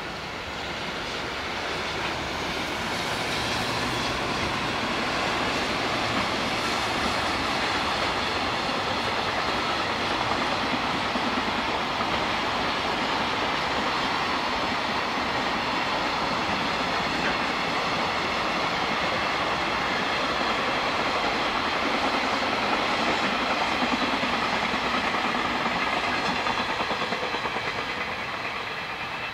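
A long JR Freight container train passing, hauled by an EF210 electric locomotive: the steady rolling noise of the wagons' wheels on the rails. It swells over the first few seconds, holds, and eases slightly near the end.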